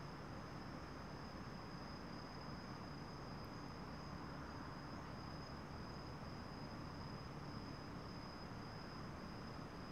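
Crickets chirping at night in a steady, high-pitched trill, over a faint low rumble.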